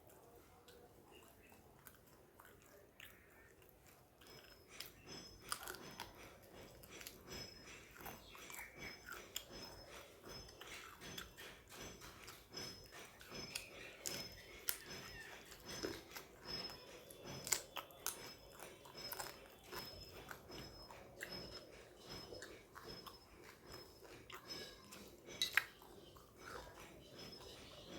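Close, quiet chewing and mouth sounds of a person eating a meal of rice and fried fish, with irregular small clicks and crunches that begin about four seconds in.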